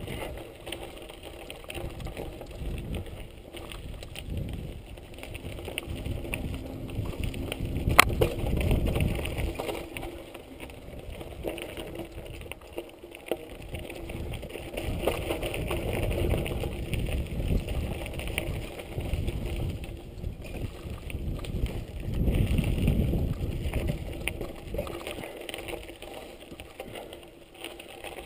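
Giant Boulder 0 29er mountain bike riding down a dirt trail: tyres rolling over dirt and leaf litter and the bike rattling over bumps, with wind rumbling on the microphone. One sharp knock about eight seconds in.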